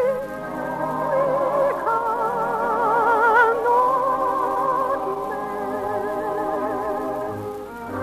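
Orchestral operetta music: a high melody line in long held notes with a wide, even vibrato over orchestral accompaniment, easing off in loudness near the end.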